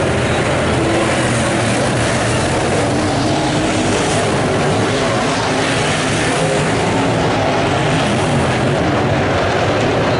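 The V8 engines of several dirt late model race cars running hard around a dirt oval, a loud steady blend of engine noise from the field of cars with no break.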